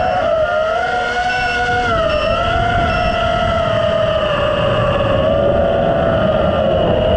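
FPV quadcopter's four 2306 2450 kV brushless motors and propellers whining, picked up by a mic on the drone itself; a steady high whine that wavers and sags slightly in pitch with throttle.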